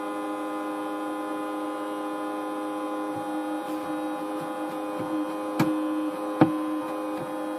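Cooling fan of a new Netgear ProSafe 24-port gigabit switch running with a steady, many-toned whining hum, a sound taken for a bad, noisy fan. Two sharp clicks come in the second half.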